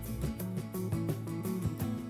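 Calm background music with plucked guitar notes and a steady beat.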